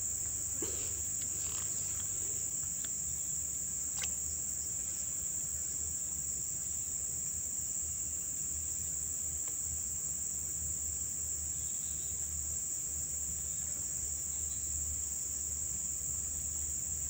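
Insects giving a steady, unbroken high-pitched trill, with a single faint click about four seconds in.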